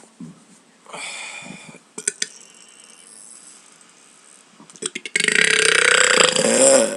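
A long, loud, deliberate burp lasting nearly two seconds, beginning about five seconds in and wavering in pitch. Before it come a breathy sound about a second in and a few small clicks.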